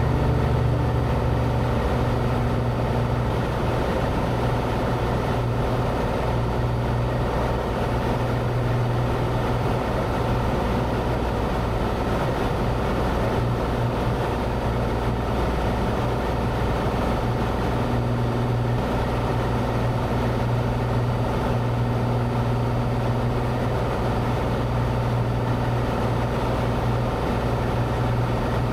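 Cessna 182's piston engine and propeller droning steadily at climb power just after takeoff.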